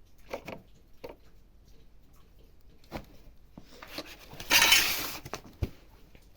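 Scattered light clinks and knocks of hard objects being handled, with one short, loud, hissing burst about four and a half seconds in.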